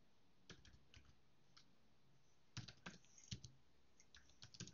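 Computer keyboard keystrokes, typed in short scattered runs of a few clicks with pauses between.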